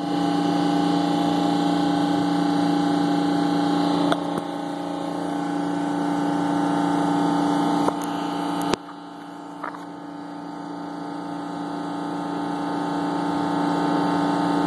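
Steady machine hum with several fixed pitches. A few short handling knocks on the phone come about 4 and 8 seconds in; after the last, the hum drops and slowly grows louder again.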